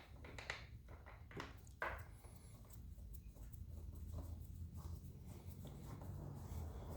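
Faint clicks and scrapes of small metal hardware, screws and a 4-hole bracket, being handled and fitted by hand, most of them in the first two seconds, over a steady low hum.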